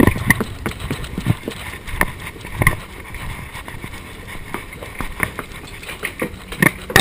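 Scattered, irregular knocks and clicks over a steady background hiss, the loudest about two and a half seconds in and again near the end.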